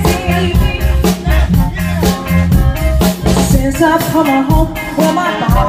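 Live band playing an upbeat song: a drum kit keeping a steady beat under bass, electric guitar and horns.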